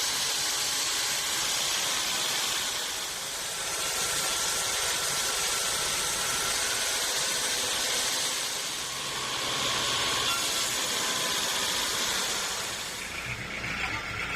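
Sawmill band saw cutting through a large log: a steady rushing noise with a faint high whine, easing off near the end.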